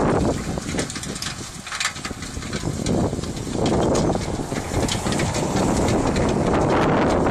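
Wind buffeting the microphone over a tractor and manure spreader working some way off across a field. The wind eases for about three seconds soon after the start, then picks up again.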